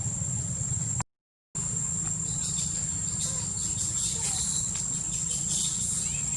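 Insects shrilling in one steady high-pitched drone, with a low rumble underneath and scattered short high chirps in the second half; all sound cuts out for about half a second a second in.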